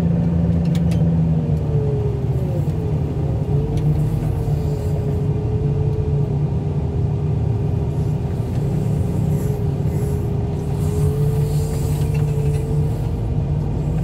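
Wheel loader's engine running steadily as it travels with a load on its arm, with a thin whine that dips in pitch two to three seconds in and then holds steady. A few faint clicks about a second in.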